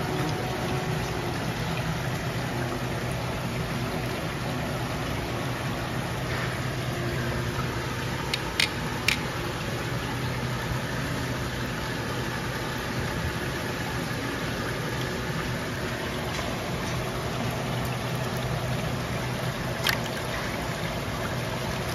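Water pouring and splashing from a spray pipe into a live lobster tank, a steady rushing over a low steady hum. Two sharp clicks in quick succession about nine seconds in, and another near the end.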